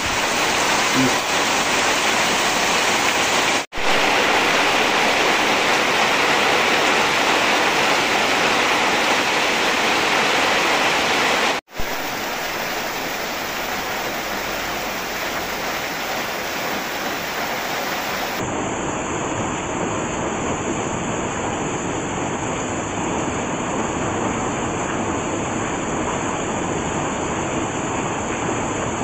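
Steady rain falling, with water streaming and dripping off the roof edge overhead. The sound breaks off for an instant twice, about four and twelve seconds in.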